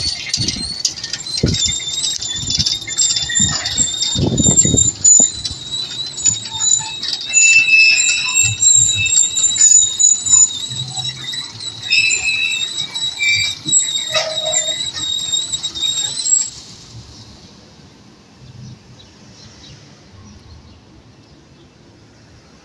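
Electric gate squealing loudly and shrilly as it moves, a piercing, wavering screech that stops abruptly about two-thirds of the way through: the gate mechanism has become noisy.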